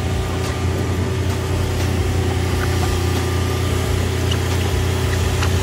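Steady low mechanical hum of running machinery, an even drone with a few faint light ticks over it.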